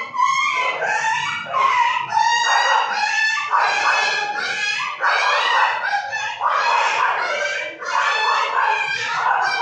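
Mixed-breed dogs fighting and crying: a dense, continuous run of agitated yelping and whining calls, several a second, with no pause.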